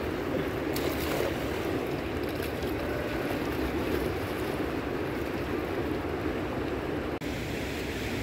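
Fast-flowing river rushing steadily over rocks, a continuous dense noise of water. Just before the end it breaks off for an instant and comes back thinner, with less low rumble.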